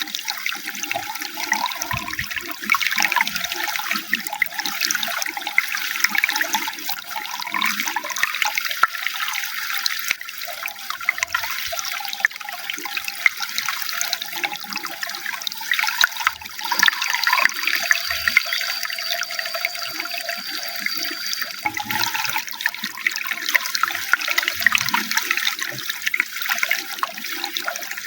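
Running water splashing and trickling steadily. A faint thin high tone sounds for a few seconds midway.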